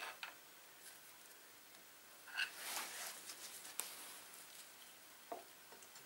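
Faint metal scraping and a few light clicks of a screwdriver levering between the pads of a Kawasaki Z1000 front brake caliper, spreading them apart to push the pistons back.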